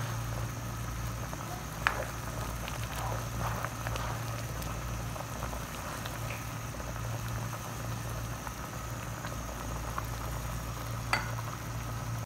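A pot of plum chutney, dried plums in sweetened syrup, at a rolling boil: steady bubbling with scattered pops, the loudest about two seconds in and another near the end, over a steady low hum.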